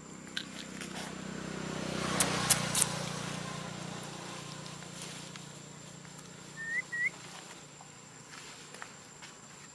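Outdoor tree-canopy ambience: a rushing sound swells and fades over a few seconds, with a few sharp clicks at its loudest. Two short rising chirps come about two-thirds of the way through, over a thin steady high-pitched tone.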